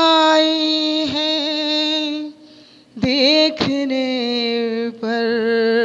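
A solo woman's voice, unaccompanied, singing a devotional qawwali and drawing out long held notes with a slight waver. She takes a short breath a little after two seconds, then holds a second long note that settles a little lower.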